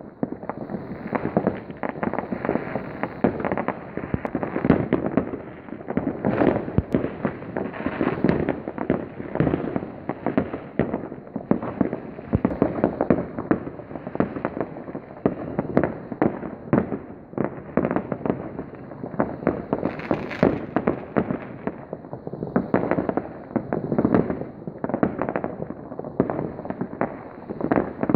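Fireworks and firecrackers going off from many places at once: a dense, unbroken crackle of bangs and pops, with one sharper crack about twenty seconds in.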